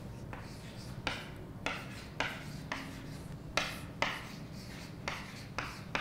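Chalk writing on a chalkboard: about ten short strokes, each starting with a sharp tap as the chalk meets the board.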